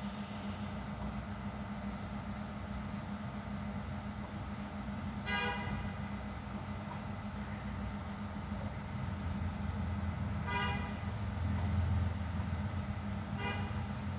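Steady low traffic rumble with short vehicle horn toots: one about five seconds in, another about ten and a half seconds in, and a couple more near the end. The rumble swells briefly around twelve seconds in.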